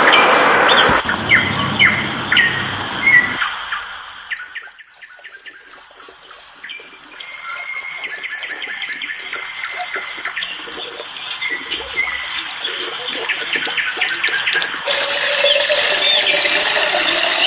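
Water splashing and trickling from a garden fountain, with short bird chirps in the first few seconds and again near the end.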